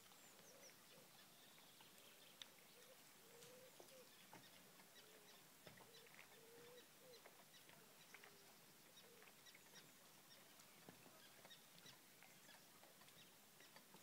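Near silence with faint bird calls: a string of short, low calls through the first nine seconds or so, and scattered light ticks.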